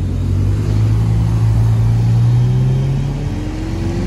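Vehicle engines pulling away: a low engine note rises slowly in pitch, loudest about two seconds in, and a second, higher engine note rises near the end.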